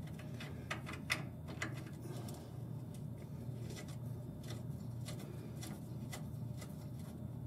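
Scattered light metallic clicks and taps of sway bar bushing hardware and tools being handled, over a steady low hum.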